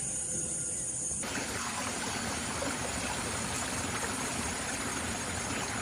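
Crickets chirping in a high steady drone, then, about a second in, an abrupt switch to the steady rushing hiss of running water, like a stream or rainwater runoff.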